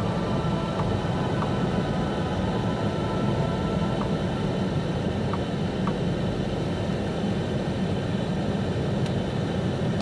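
Steady engine and road noise of a car driving slowly, heard from inside the cabin.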